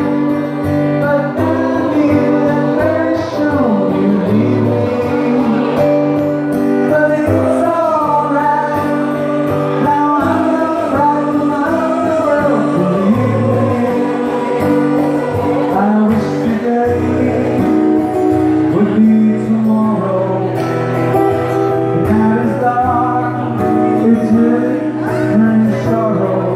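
Mixed choir of men and women singing a pop song together with live band accompaniment, the voices over steady held low notes.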